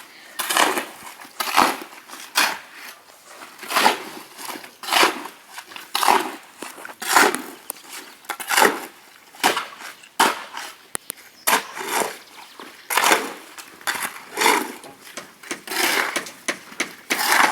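Rhythmic scraping strokes, roughly one a second, of a hand tool working through cement mortar as it is mixed by hand.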